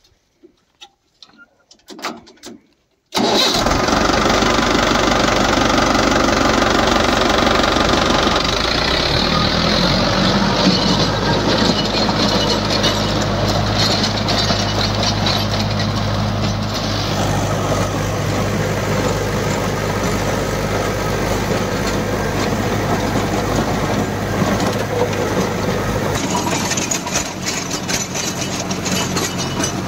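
Near silence with a few faint knocks, then from about three seconds in a Swaraj 843 XM tractor's diesel engine runs loud and steady, driving a 6 ft Jadhao Leyland rotavator tilling the soil. The engine note shifts about nine seconds in and again near the end.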